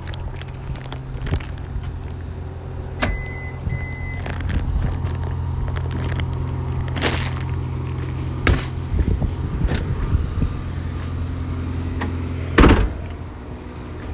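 Car engine idling steadily, with a few sharp clunks and a short double beep about three seconds in.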